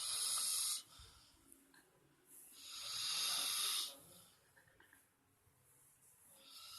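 A sleeping person snoring: hissy, noisy snores about every three and a half seconds, one ending about a second in, a long one in the middle, and another starting near the end.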